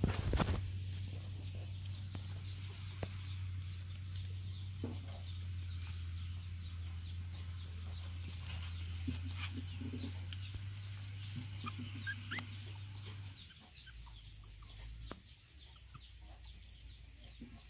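Faint, scattered animal calls and small clicks over a steady low hum that stops about thirteen seconds in.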